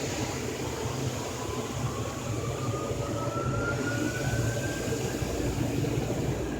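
Automatic car wash dryer blowers running with a steady rushing roar, with a thin whine rising slowly in pitch through the middle.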